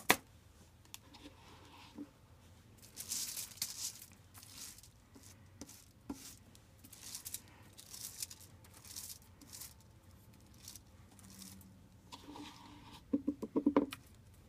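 Hair-dye brush swishing dye through a wet hair weft on aluminium foil, in separate strokes about every second or two, with soft crinkling of the foil. A sharp click at the very start and a quick run of ticks near the end.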